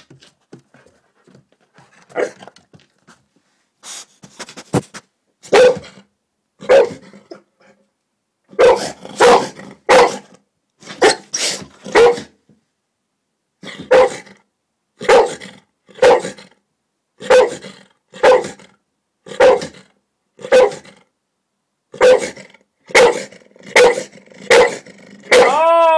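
Search and rescue dog barking repeatedly at close range, about one bark a second with some quicker runs, alerting that it has found the person hidden under the bus seat. The last bark is drawn out and falls in pitch.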